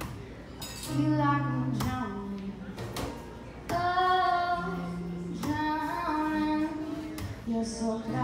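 A young woman singing a song with long held notes, accompanying herself on a strummed acoustic guitar.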